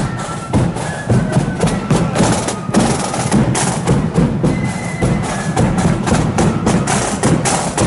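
Marching flute band playing: high flute notes over fast, dense snare drumming and a bass drum beat.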